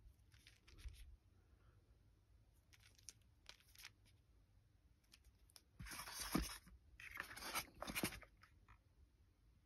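Handling noise: small taps and clicks, then two bursts of crunchy scraping about six and seven-and-a-half seconds in, as a .177 pellet tin and an air pistol are moved about in a moulded polystyrene box insert.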